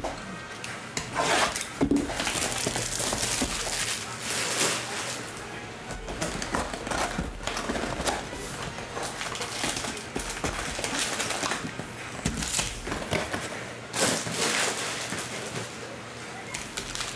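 Plastic shrink wrap crinkling and tearing off a cardboard trading-card box, then the box lid rubbing open and foil card packs rustling as they are pulled out, with many sharp crackles throughout.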